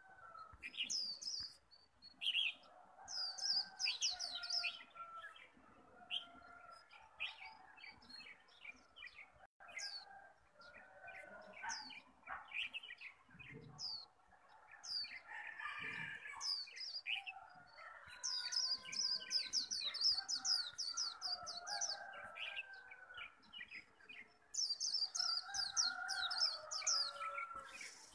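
White-eye (khuyên) singing its fast 'líu' song in full competition form: repeated bursts of rapid, high twittering trills, the longest two-thirds of the way through and near the end. Lower warbling calls sound beneath it throughout.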